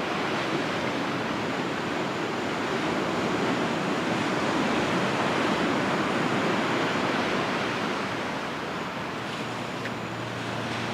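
Atlantic surf washing onto the beach, a steady rush that swells a little in the middle and eases near the end.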